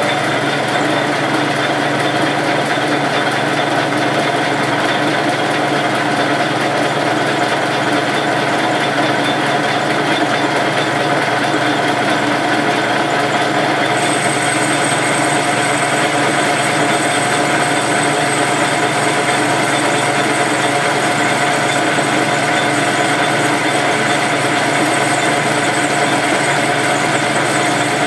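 Metal lathe running steadily with several held tones from its motor and gearing, while a tool bores out the centre hole of an aluminium wheel spacer adapter.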